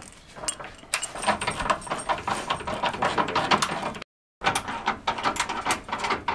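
Socket ratchet clicking rapidly as a bolt on the front sway bar mounting is run in and tightened, with the sound cutting out briefly about four seconds in.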